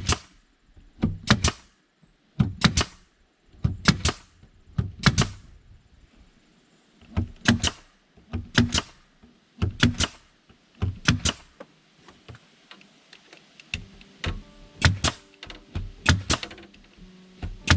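Nails being driven into a wooden board: a run of sharp strikes about once a second, some in quick pairs.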